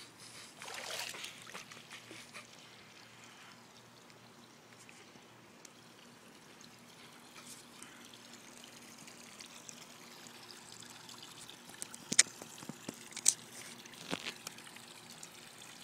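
Swimming-pool water trickling and lapping as a steady soft hiss, with a brief louder rush about a second in. A few sharp clicks near the end are the loudest sounds.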